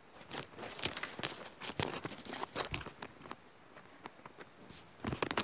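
Close rustling and crinkling with sharp little clicks and knocks, from handling paper and moving the phone around. It comes in two bouts: a longer one over the first three seconds and a short one near the end.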